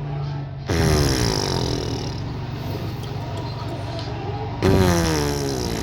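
A baby blowing raspberries, buzzing her lips to make fart noises. Two long buzzes, each starting suddenly and falling in pitch, about four seconds apart.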